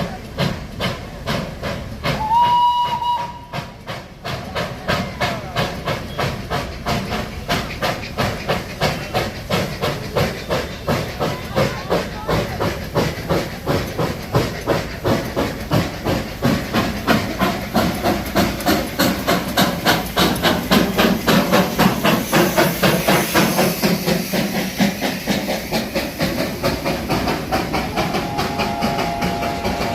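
Darjeeling Himalayan Railway narrow-gauge steam locomotive working: a short whistle blast about two seconds in, then a steady beat of exhaust chuffs with hissing steam as the train pulls. Near the end the whistle sounds again, on two notes held together.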